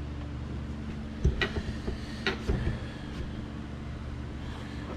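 A few light metallic clicks and taps from a piston ring and tools being handled at a bare 12-valve Cummins engine block, over a steady low hum.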